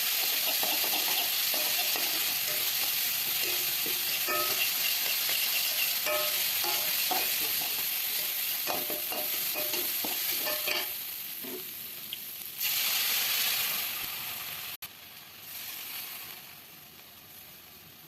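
Ground spice paste and bay leaves frying in a little oil in a pan, sizzling steadily, with a spatula stirring and clinking against the pan. Near the end the sizzle swells briefly louder, then cuts off suddenly and comes back much quieter.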